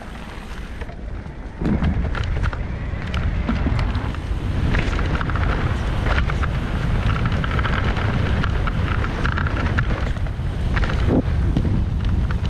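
Wind buffeting the camera microphone and tyre rumble of a KTM Macina Kapoho e-mountain bike riding fast down a dirt forest trail, with frequent rattles and knocks from the bike over roots and bumps. The noise gets louder about two seconds in as the bike picks up speed.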